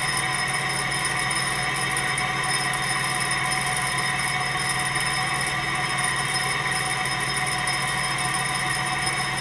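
Small gamma-type Stirling engine with a graphite power piston in a polished brass sleeve, running fast at about 1,100 to 1,200 rpm and still slowly speeding up: a steady mechanical hum.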